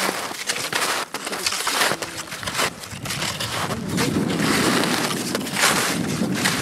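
Snowshoe steps crunching through deep snow, irregular, roughly two a second. From about four seconds in, a louder rushing noise joins them.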